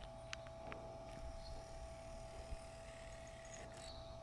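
Faint steady room tone: a low hum with a thin constant mid-pitched tone, and two soft clicks in the first second.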